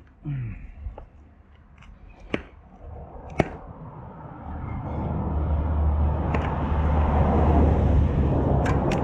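Sharp clicks and taps from a spoked wheel and tyre being handled by hand, then a passing vehicle's rumble that swells over the second half.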